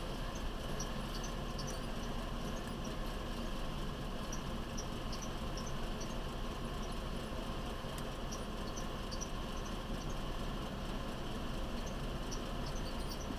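Truck idling while stopped, a steady low engine hum heard from inside the cab. Short, faint, high-pitched squeaks come and go irregularly over it.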